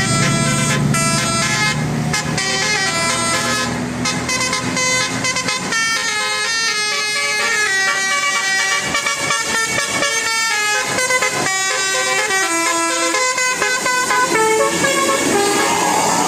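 Bus 'telolet' horn, a Basuri multi-tone horn, playing a fast tune of quickly changing notes, often with several horn tones sounding together. A low steady hum sits under it for the first few seconds.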